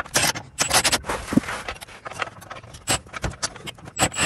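Irregular metallic clinks, clicks and scrapes of wrenches, sockets and bolt hardware being worked on a Jeep Wrangler JL's suspension control arms, the bolts run in but not yet torqued. A few of the clinks ring briefly.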